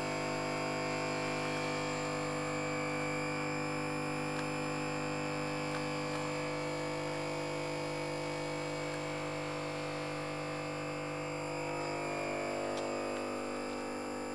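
Steady electrical hum from a ventilated electrical equipment cabinet, many held tones from low to high sounding together without change; the lowest part drops away near the end.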